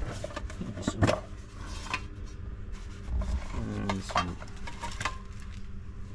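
A small metal tin being handled and opened: scattered clicks and clinks of the tin and its lid, the sharpest about a second in, with the rustle of a cloth wrapping being lifted out.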